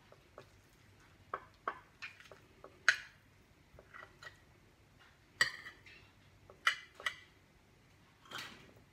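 Metal spoon clinking against a ceramic plate as it pulls apart roast chicken: a dozen or so irregular sharp clinks, the loudest about three and five and a half seconds in, with a softer, longer scrape near the end.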